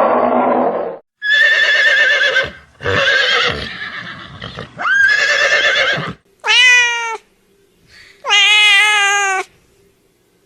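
A run of separate animal calls. A low call cuts off about a second in, then five pitched cries of up to about a second and a half each follow with short gaps between them. The first few waver in pitch; the last two are steadier, clearer cries.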